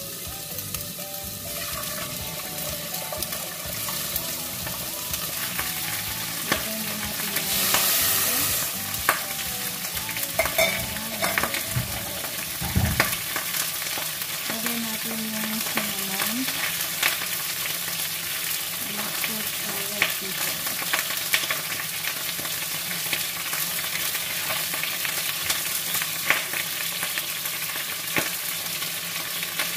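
Chicken pieces frying in a little olive oil in a stainless steel pot: a steady sizzle full of small crackles and pops, with a louder surge of sizzling about eight seconds in and a low knock around thirteen seconds.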